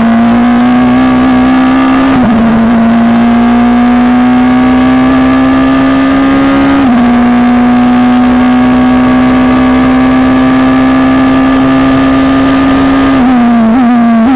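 Formula Two car's Audi 1.8-litre turbocharged four-cylinder engine, heard from on board, at full throttle down a straight with the pitch climbing slowly. It upshifts about two and seven seconds in, then runs down through a quick series of downshifts near the end as the car brakes.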